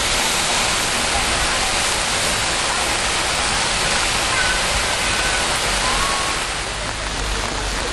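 Heavy rain pouring down, a steady dense hiss that eases slightly near the end.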